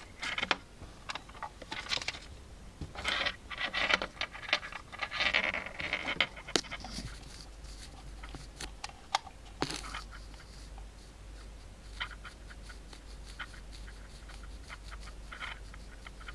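Handling noise from hot-gluing at a workbench: irregular clicks, taps and scrapes as the glue gun is worked over the cable, busiest in the first six seconds, then sparser over a faint low hum.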